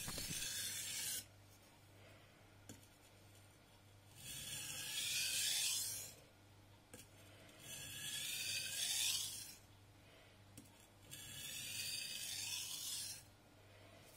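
A VG10 Damascus nakiri blade drawn across a wet whetstone in three long gritty scrapes of about two seconds each, after a short scrape at the very start. These are single strokes alternating sides, the finishing stage of sharpening.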